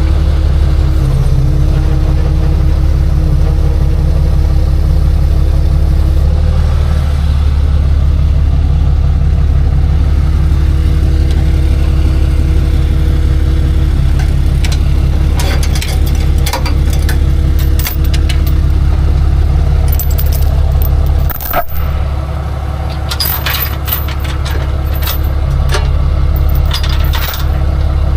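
Tow truck engine running steadily at idle, with a faint whine that shifts pitch slightly a couple of times. From about halfway on, metal clinks and rattles join in, busiest in the last few seconds, like chains and hooks being handled.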